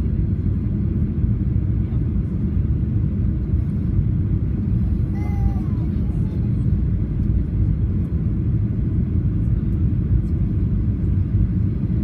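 Steady low rumble of a Boeing 737 airliner's engines and airflow.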